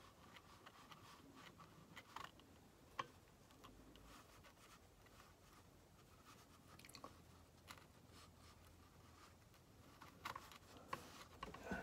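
Near silence: faint room tone with scattered small clicks and ticks, a sharper click about three seconds in and several more near the end.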